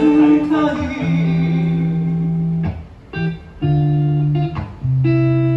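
A voice singing over a plucked guitar, recorded on an iPhone 11's microphone: long held notes with short breaks between phrases.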